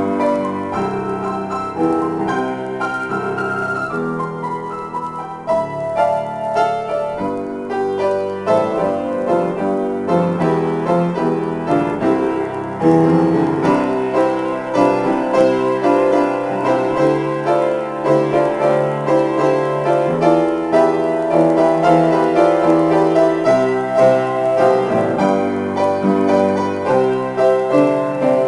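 Solo grand piano playing an improvised piece, many notes and chords struck in quick succession; the playing grows louder about halfway through.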